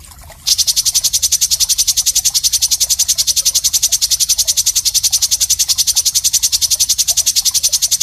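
A rapid, perfectly even high-pitched pulsed trill, roughly ten pulses a second, from a masteran recording of a calling animal; it starts about half a second in, after a brief break, and runs on without change.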